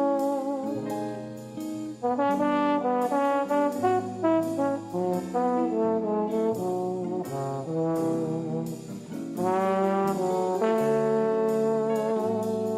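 Outro music led by brass, trombone and trumpet, playing a melody over held chords.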